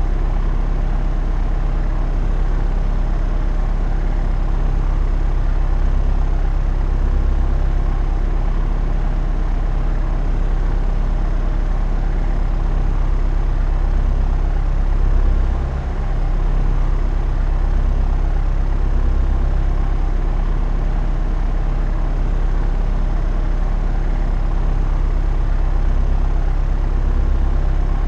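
Propeller aeroplane in flight: a steady, deep engine-and-propeller drone with a fast, even pulsing, dipping briefly in level a little past halfway.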